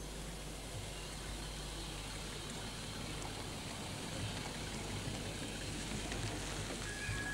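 Steady hiss with a low mains hum, the background noise of an old videotape recording, swelling slightly in the second half; a thin steady tone starts just before the end.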